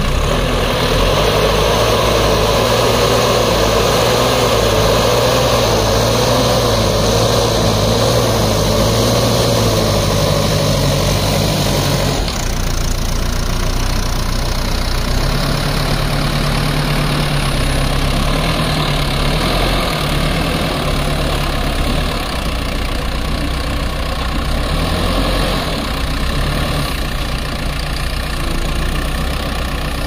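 Diesel engine of an ACE AX-124 backhoe loader running steadily while its front loader bucket scoops, lifts and dumps soil. The engine's note shifts about twelve seconds in.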